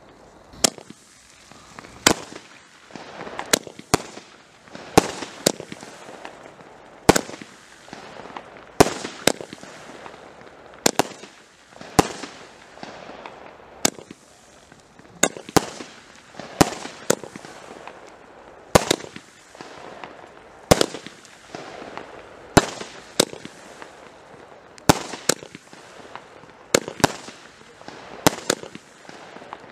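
Weco Full House set of 19-shot fireworks cakes firing: a long string of sharp bangs, roughly one every second or two and often in close pairs, as the shots burst overhead.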